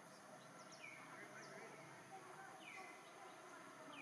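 Faint bird calls: a few short chirps that sweep down in pitch and level off, repeating every second or two over a quiet outdoor hiss.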